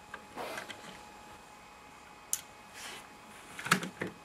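Handling noise from a BSA Century .22lr bolt-action rifle: soft rustling, a single sharp click about two seconds in, then a louder cluster of metallic clicks near the end as the action is worked.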